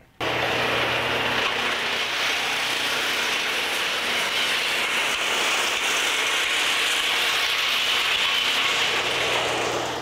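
Brush chipper running loud and steady as tree branches are fed in and chipped into mulch. The dense grinding noise cuts in abruptly just after the start.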